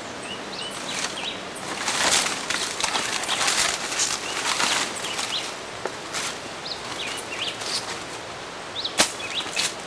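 Leaves and branches rustling as someone pushes through dense brush, loudest from about two to five seconds in, with birds chirping repeatedly in the background and a sharp click near the end.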